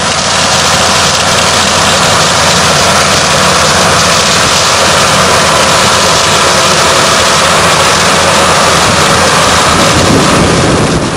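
Garford Victor four-row sugar beet harvester working: a steady engine with a loud, even rush of machinery noise over it, changing near the end.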